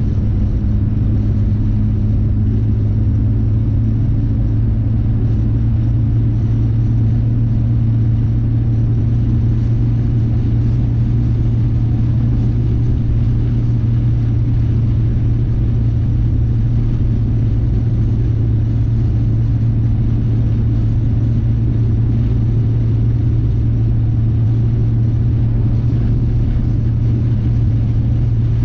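Car cruising steadily on a sealed highway, heard from inside the cabin: a steady low engine drone over an even rush of tyre and road noise.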